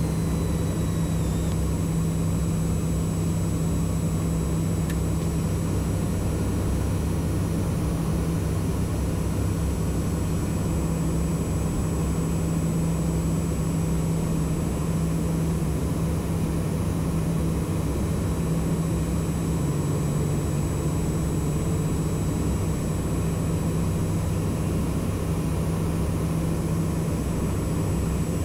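Steady cabin drone of a Socata TBM 910's single Pratt & Whitney PT6A turboprop engine and propeller at climb power after takeoff. It is a constant low hum over a rushing hiss with a thin high whine, and the hum dips slightly in pitch about twenty seconds in.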